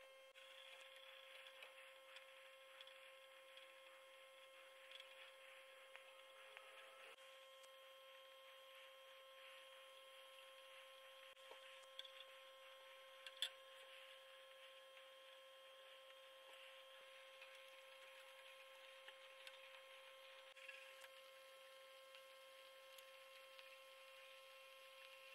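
Near silence: a faint steady electrical hum, with a couple of small clicks about halfway through.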